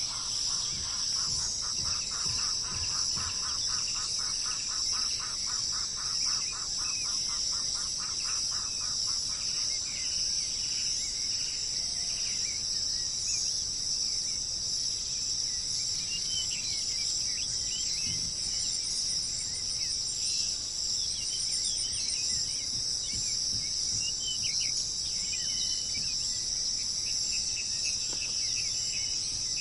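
Steady, high insect chorus, with birds calling over it: a fast, even series of repeated notes for about the first nine seconds, then scattered short chirps and whistles in the second half.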